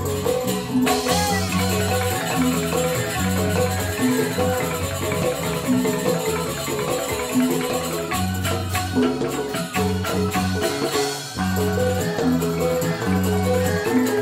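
Joged bumbung gamelan music: bamboo xylophones play a repeating melody over low bass notes, with sharp percussive clicks.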